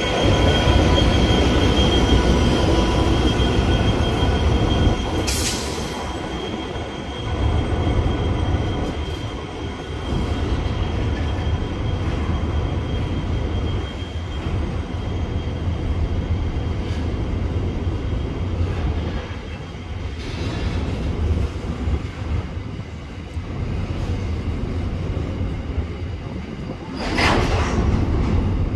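Pacific National freight train with 81 class diesel locomotives running through a station, the locomotives' low engine drone carrying on as a long rake of container wagons rolls past with steady wheel-on-rail noise. Two brief high-pitched wheel squeals cut in, one about five seconds in and one near the end.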